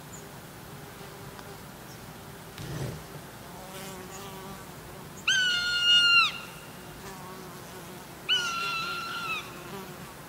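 A bird of prey screaming twice, each shrill scream about a second long and dropping slightly at the end, over the faint buzz of flies.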